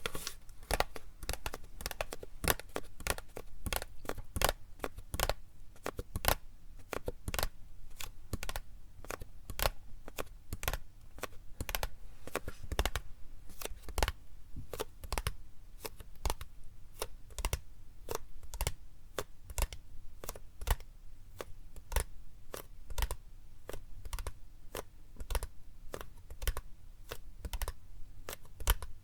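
Plastic PET drink bottle being tapped, giving crisp, irregular clicks about two or three a second.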